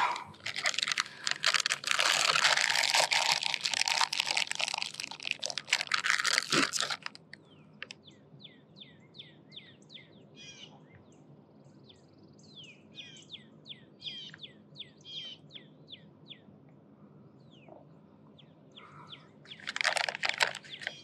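Crinkling and crunching of a plastic bait bag being handled as the last of the fishing bait is used up, for about seven seconds and again briefly near the end. In between, a small bird chirps repeatedly in short falling notes.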